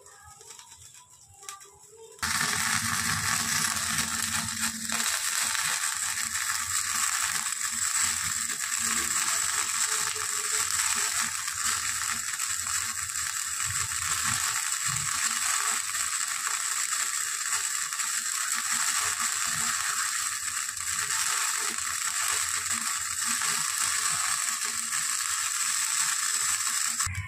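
Whole eggplant roasting on a wire mesh rack over an open gas burner flame: a loud, steady hiss that starts abruptly about two seconds in and cuts off suddenly at the very end.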